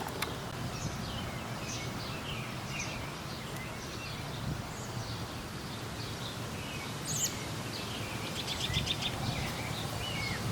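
Wild birds chirping and calling outdoors over a steady low background rumble, with a quick run of repeated chirps near the end.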